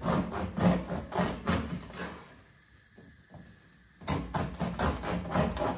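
Bread knife sawing through a crusty loaf, the crust crunching in quick strokes of about four or five a second. The sawing stops about two seconds in and starts again about four seconds in.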